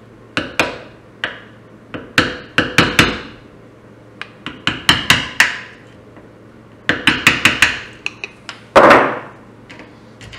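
Small hammer tapping a screwdriver or punch against a small metal clip on a throttle position sensor held in a bench vice, to knock the clip off. Sharp metallic taps come in quick clusters of several strikes, with one longer, louder hit near the end.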